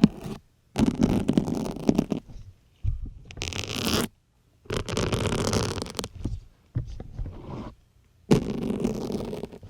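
Syringe needles being pushed one after another into a soft blue sponge, the sponge squeaking and rasping around each syringe. There are about five pushes, each lasting about a second, with short gaps between them.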